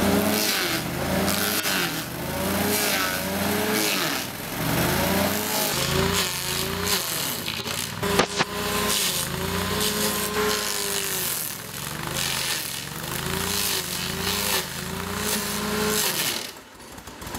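Kohler Command engine of a Bandit stump grinder running under load as its cutter wheel grinds into a tree stump. The engine pitch sags and recovers every second or two as the wheel bites, over the hiss of wood being chewed into chips. It drops off briefly near the end.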